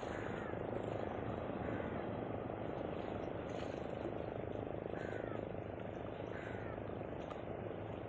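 Steady wash of sea water lapping and surging against the rocks of a seawall. A short, faint, falling chirp, likely from a bird, comes several times over it.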